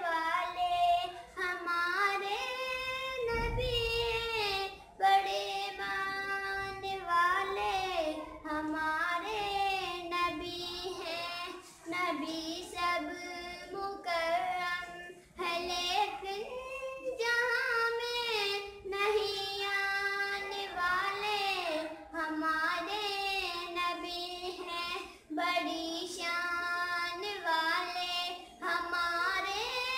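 A young girl singing solo, a melody of held, bending notes sung in short phrases with brief breaths between them.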